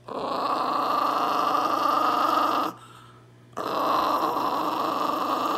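Small dog growling on cue as a play growl, with a sneaker in its mouth: two long, steady growls, the second starting about three and a half seconds in after a short pause.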